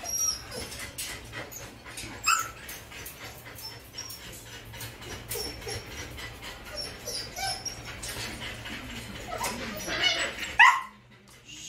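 Siberian husky whimpering and whining while it is held for artificial insemination, with short high whines throughout. A louder run of cries comes near the end and cuts off suddenly.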